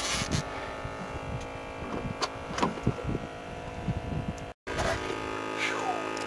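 A steady mechanical hum made of many even tones, with scattered short clicks and knocks on top. It cuts out briefly about four and a half seconds in, then resumes.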